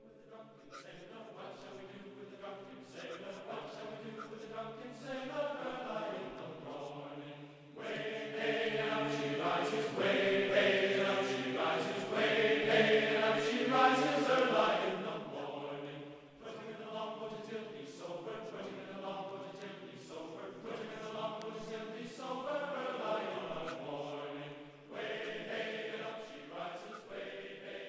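Background music of sustained, choir-like chords changing every few seconds, growing louder in the middle and easing off again.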